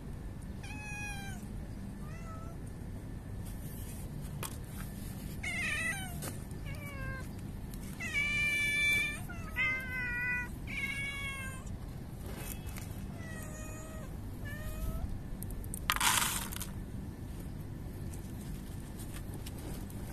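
Street cats meowing: a series of short, rising-and-falling meows, the loudest about eight seconds in. A short hiss-like burst of noise comes about three-quarters of the way through.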